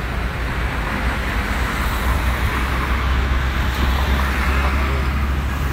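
Dump truck's diesel engine running with a steady low rumble, together with tyre noise on the wet road.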